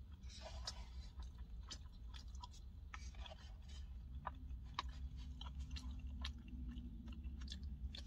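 Close-up chewing of a mouthful of steak, rice and beans, with scattered small wet clicks and faint taps of a plastic fork in the bowl, over a low steady hum.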